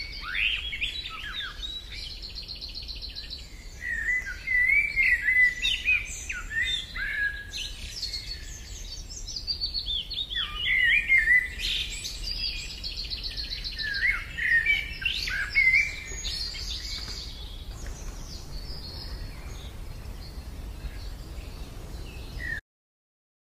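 Songbirds chirping and singing, with two rapid trills among the calls, over a steady low rumble. The sound cuts off abruptly near the end.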